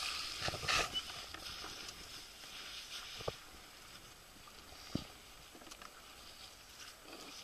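Faint rustling and scraping of immersion suits and a plastic rescue sled being worked on ice, with two sharp knocks, one a little past three seconds in and one about five seconds in.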